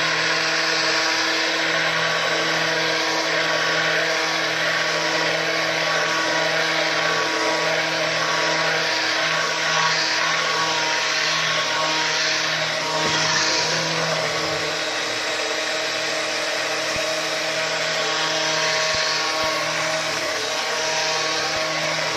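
Electric hand blender running steadily, its motor humming as it blends cooked lentil soup with cooking cream into a smooth purée.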